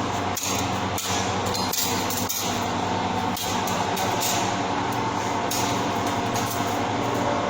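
Steady machinery drone with a low pitched hum and hiss, and a few sharp knocks in the first few seconds.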